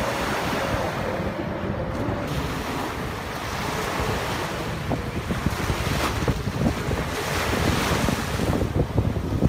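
Small waves breaking and washing up on a sandy beach, with a swell of louder surf near the end. Wind buffets the microphone with a gusty low rumble.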